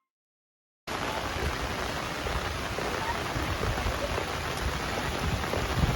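Heavy rain pouring down, a dense steady rushing hiss that cuts in abruptly about a second in after a moment of silence.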